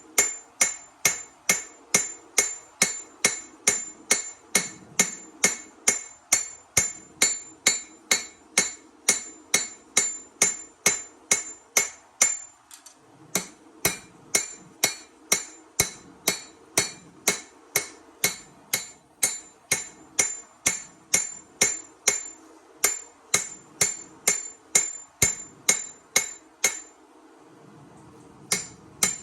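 Hammer blows on steel over an anvil while forging a knife blade, about two strikes a second, each with a high metallic ring. The rhythm breaks briefly twice, about halfway through and near the end.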